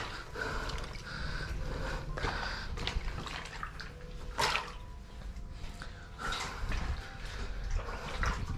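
Someone scrambling through a narrow rock cave passage: scuffs and a few sharp knocks against stone, with splashing or trickling water, in a small space that echoes.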